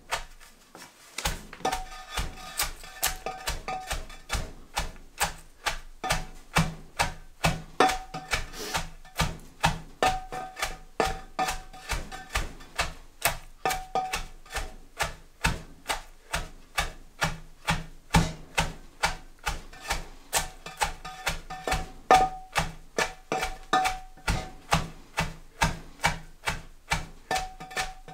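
Wooden batten stamping shredded white cabbage down in a stoneware fermentation crock: steady repeated thuds, about three a second, pounding the cabbage until its juice comes out.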